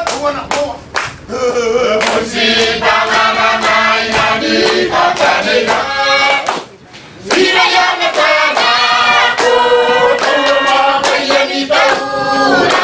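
A mixed group of men and women singing together as a choir in several-part harmony, with a short break about halfway through.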